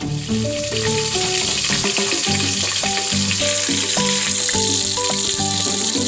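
Food sizzling in hot cooking oil in a pan. The sizzle starts suddenly and grows a little stronger after a few seconds.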